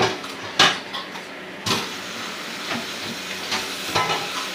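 A knock of a pot or utensil, then, about a second and a half in, a sudden steady sizzling hiss from food cooking in a hot pot on the stove.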